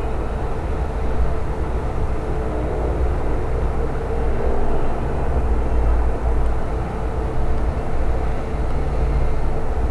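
Steady low rumbling background noise without speech.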